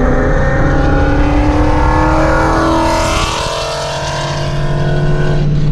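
Ford Mustang GT's V8 heard from inside the car while driving, loud and steady. Its pitch sags and then climbs again about three seconds in.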